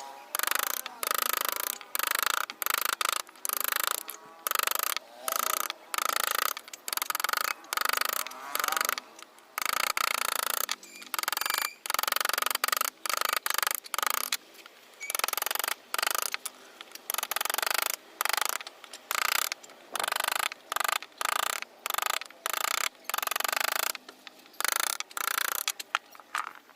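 A hand carving tool scraping across wood in short, repeated rasping strokes, about two a second, with brief gaps between them.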